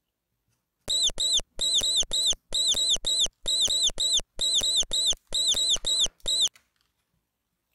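Cartoon mouse squeaking sound effect: quick high squeaks in tight groups of two or three, repeated about seven times, starting about a second in and stopping after about five and a half seconds.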